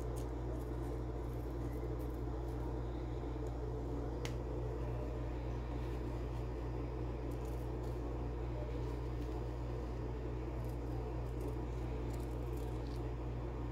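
A steady low machine hum, unchanging throughout, with a single sharp click about four seconds in.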